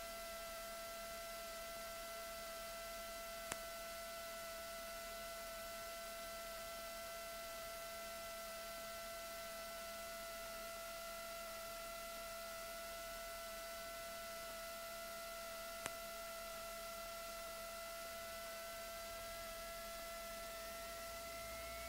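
Steady electrical hum and whine with a constant hiss, heard on the cockpit's intercom audio feed rather than the engine itself. One higher tone wanders in pitch and then rises near the end. Two faint clicks, one early and one late.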